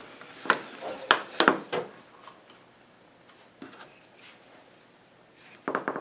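Small wooden pieces and a hardware-cloth screen being handled and set against a wooden hive body: a few light wooden knocks and taps in the first two seconds, then a brief cluster of knocks and rubbing near the end.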